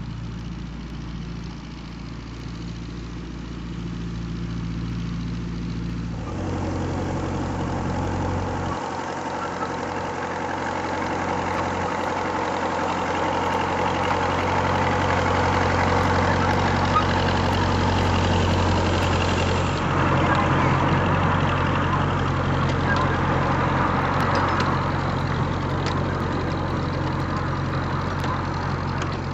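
Small engine of a miniature diesel-outline locomotive running steadily as it hauls a passenger train, growing louder over the first half, with a change in its sound about six seconds in and again near twenty seconds.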